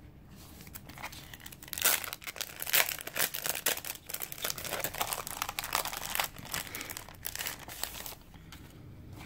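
Clear plastic sleeve of a planner sticker pack crinkling as the stack of sticker sheets is slid out of it: a dense run of crackles starting about a second in and stopping near the end.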